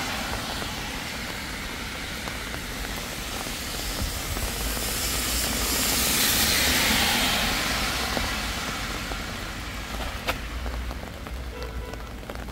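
Vehicle tyres hissing on a rain-soaked road as it passes, swelling to a peak about halfway through and then fading, over steady rain. Sharp raindrop taps come through near the end.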